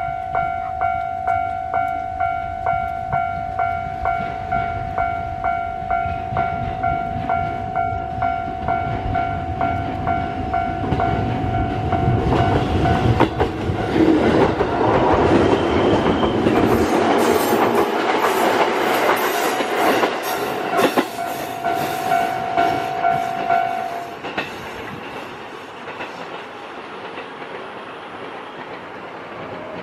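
A Japanese level-crossing alarm rings steadily about twice a second and stops near the end. Meanwhile a JR East 205 series 3100 electric commuter train passes close by, its wheels clattering over the rail joints at the loudest point, in the middle.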